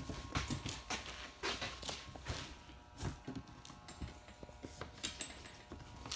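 Irregular light knocks, taps and short rubbing scrapes as hands work a rubber gasket around a Lexan windshield panel.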